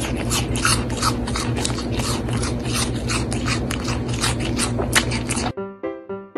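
A young goat chewing a crunchy snack close to the microphone: rapid, irregular crunches. About five and a half seconds in, it cuts abruptly to piano music.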